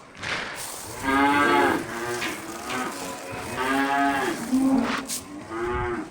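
Dairy cattle mooing: several overlapping calls, the longest about a second each, the strongest about a second in, midway and near the end.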